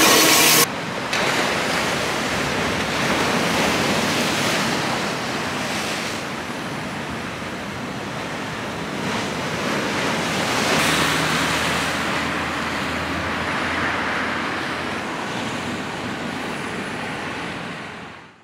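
Small waves breaking and washing on a shore, an even surf noise that swells and ebbs slowly and fades out near the end. It opens with the loud clatter of a passing electric train, cut off abruptly within the first second.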